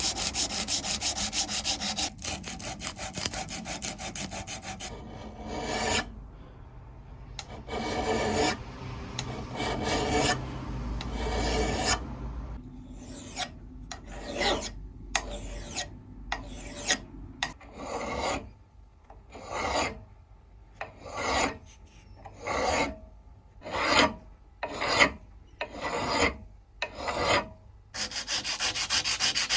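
Hand abrading strokes, filing or sanding, on the metal of a vintage jeweller's vice: quick continuous strokes at first, then separate slower strokes about one a second through the second half.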